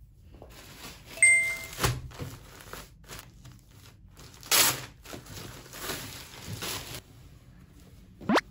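Plastic mailer bag crinkling and rustling as it is handled and opened, in irregular bursts with the loudest rustle about halfway through. A short ding sounds about a second in, and a quick rising whoosh comes near the end.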